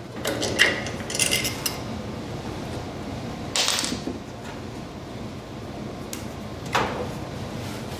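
Small metal parts clinking and clattering: a handful of separate knocks, one with a short metallic ring, about a second in, then single clatters about three and a half and seven seconds in, as the parts of a forced-air heater's air pump are handled.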